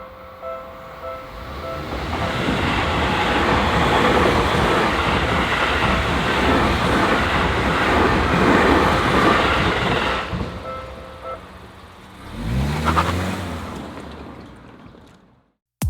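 Japanese level-crossing warning bell ringing in a steady, even ding, then a train passing close by, its wheels and running gear loud for about eight seconds. The bell carries on briefly after the train has gone and then stops. Near the end a brief engine sound rises in pitch and fades.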